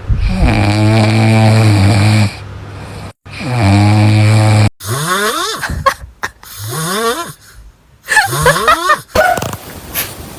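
Dog snoring loudly: two long, steady snores, then three shorter snores that rise sharply in pitch.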